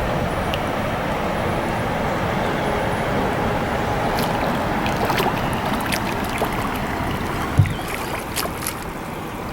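Kayaks moving through shallow, rocky river water: a steady rush of moving water, with scattered paddle splashes and clicks from about halfway through and a single low thump near the end.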